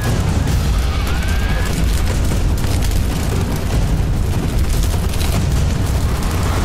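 Large fire roaring with a steady, deep rumble. A single high cry rises and falls over it about a second in.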